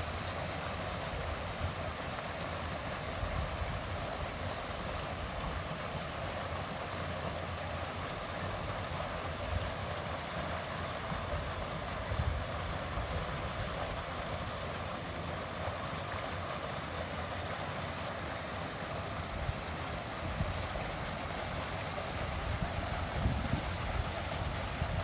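Stream water rushing steadily over a small weir, with wind buffeting the microphone in low gusts.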